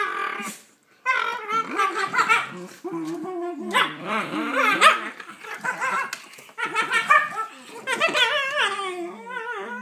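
Two Shiba Inu puppies vocalizing at each other as they tussle over a toy: a string of wavering, pitched growls and yips, the breed's play "talking". The calls are broken by short gaps, one nearly silent just under a second in.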